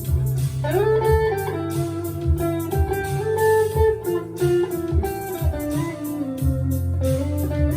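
Rockburn Strat-style electric guitar played through a small valve amp: a bluesy single-note lead line with string bends, over low bass notes held underneath.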